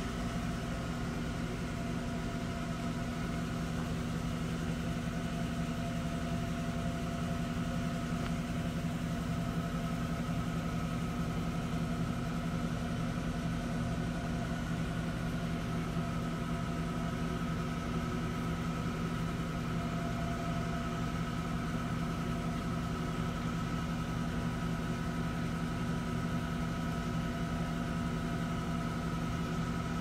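A steady machine hum with several constant pitched tones over a low noise, unchanging throughout.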